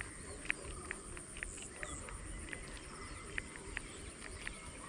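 Scattered short, high-pitched chirps at irregular intervals, calls of small wildlife around a flooded paddy field, over a low rumble.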